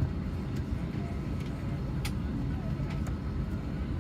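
Airbus A319 cabin noise on the ground before takeoff: a steady low rumble from the engines and air system, with a few sharp clicks, the strongest about two seconds in.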